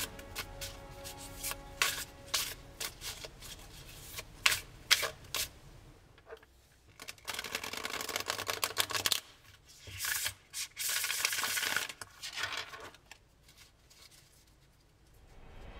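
A KEYMASTER tarot deck being shuffled by hand: many quick light taps and slides of cards during overhand shuffling, then about three riffle shuffles, each a short flutter of card edges.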